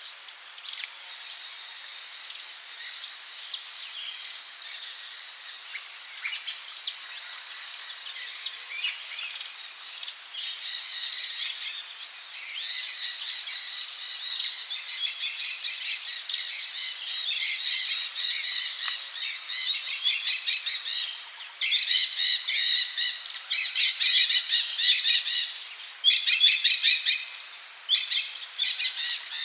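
Forest birds chirping and trilling over a steady high-pitched insect drone. The calls grow busier from about ten seconds in, with loud rapid trills near the end.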